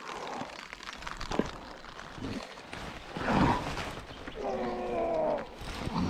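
A man grunting and groaning with strain while pumping a heavily bent spinning rod against a large catfish, over a steady hiss of rain. The loudest parts are one rough grunt about three seconds in and a drawn-out groan about a second later.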